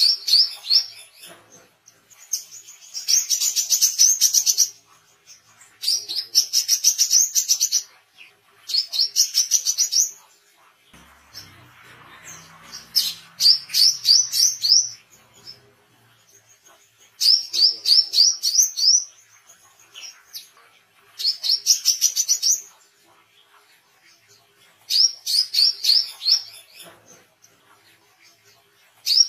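Male brown-throated sunbird (wiceh) singing in full voice: bursts of rapid, high-pitched chattering notes, each one to two seconds long, repeated every few seconds. A faint low rumble sits under the song for a few seconds just before the middle.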